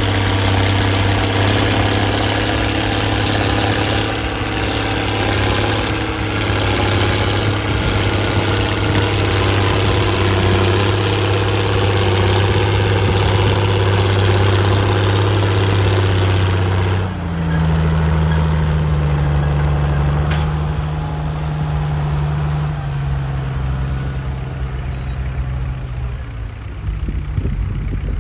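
Straight-piped Case 1056XL tractor's six-cylinder diesel engine running steadily under ploughing load. About two-thirds of the way through the sound changes suddenly, becoming duller with a higher, steadier low note.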